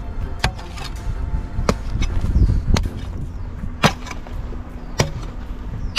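Mattock blows into hard, stony earth: five sharp strikes about a second apart.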